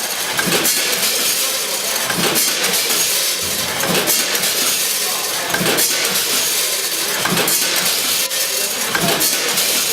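Automatic packaging machine running, with a regular clatter a little more often than once a second over a steady hiss, and clinking of product falling through it.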